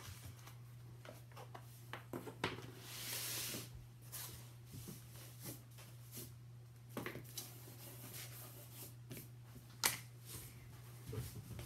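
Flat cardboard craft pieces being handled, slid and set down on a wooden tabletop: scattered light taps, with a brief rustle of sliding about three seconds in.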